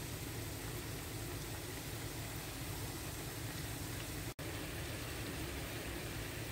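Hot oil sizzling steadily around pieces of dough deep-frying in a pan, with a momentary dropout about four seconds in.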